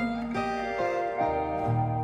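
Background music: plucked acoustic guitar, with notes changing every half second or so.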